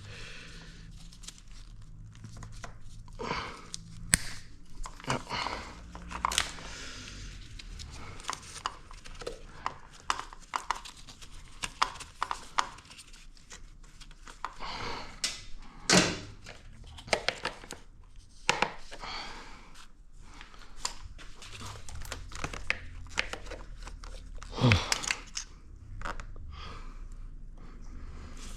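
Pliers and hand tools working at a zip tie and hose clamp on a motorcycle, with irregular clicks, scrapes and knocks of metal and plastic over a low steady hum.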